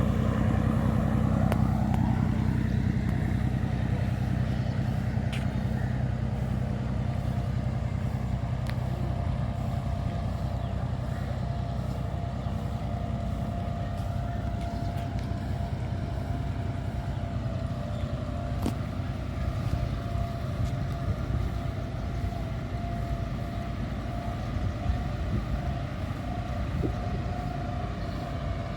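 An engine running steadily with a constant low hum, joined by a thin steady whine a few seconds in.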